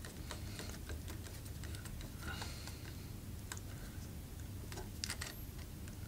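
Faint, scattered small clicks of a screwdriver tightening a wire onto the common terminal screw of a three-way light switch, over a low steady hum.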